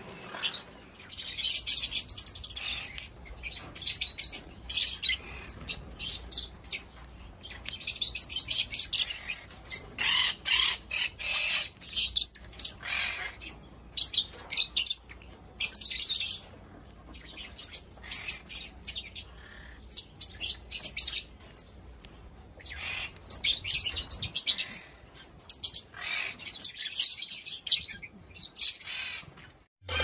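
A flock of lovebirds and other small parrots in an aviary chirping and chattering in repeated short bursts of high-pitched calls.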